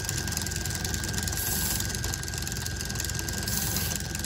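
Small DC motor spinning the M&M launcher's wheel at a steady speed, with a thin steady high whine over the running noise, held at its target RPM by a tachometer feedback loop.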